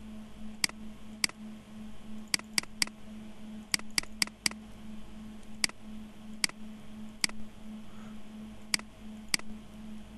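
Computer mouse button clicking about fourteen times at irregular intervals, sometimes in quick runs of two or three, as fillets are picked in a CAD sketch. A steady low hum runs underneath.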